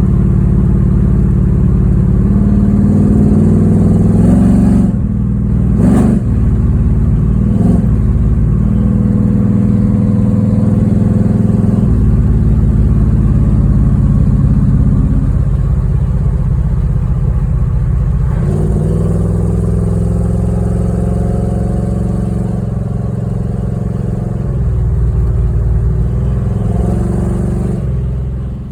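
Pontiac 455 V8 with a Lunati Voodoo camshaft and a Holley 750 carburetor, running under way on the road, its idle mixture freshly tuned. The engine pitch rises twice as the car accelerates, with a short break about five seconds in.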